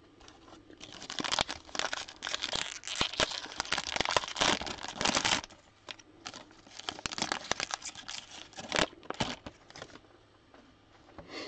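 Crinkling and tearing of the cellophane wrapper on a 2021 Donruss football cello pack as it is torn open. The crackling is densest in the first half and then thins to scattered crinkles.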